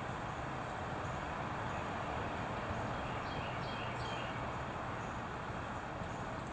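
Steady outdoor background noise with a low rumble, and faint, short bird chirps scattered through it.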